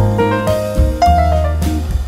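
Background instrumental music in a jazz style: piano with a bass line and light drums.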